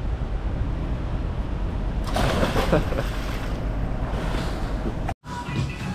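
A person jumps into a swimming pool: a splash about two seconds in, then water churning for a couple of seconds, over steady wind noise on the microphone.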